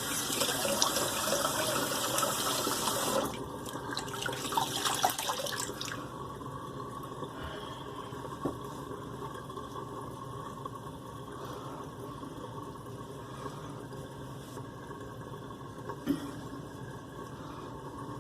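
Bathroom sink tap running, turned down about three seconds in, with splashing water for a few seconds more; after that, water draining from the sink, steady and quieter.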